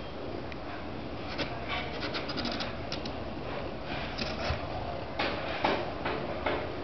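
Soft scratching and rustling from newborn kittens squirming on a towel against their nursing mother, with clusters of small clicks and scrapes a second and a half in, around four seconds and again between five and six and a half seconds.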